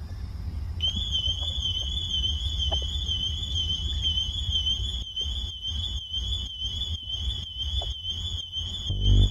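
Honda car alarm sounding a continuous, fast-warbling high tone that starts about a second in, over a steady low rumble. From about halfway the alarm is chopped into an even rhythm, and an electronic dance kick drum comes in near the end.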